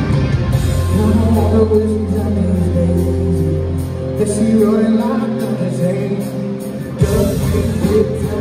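Live country-rock band playing loud through a concert PA, heard from the crowd: electric guitars, bass and drums. A long low bass note holds through the first half, and about seven seconds in the full band comes back in with a sudden hit.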